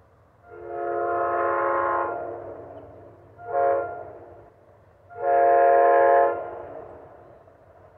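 Amtrak train's multi-note horn, not yet in sight, sounding a long blast, a short one, then a longer, louder one: the end of the long-long-short-long grade-crossing signal.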